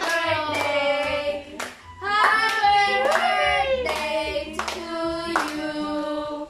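A group of people singing together with hand-clapping, a short break in the singing about two seconds in.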